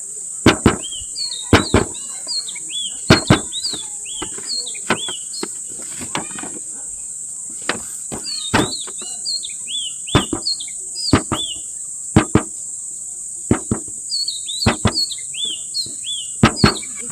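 Short, hooked bird chirps repeating over a steady high insect-like drone, with many sharp clicks or taps, often in quick pairs.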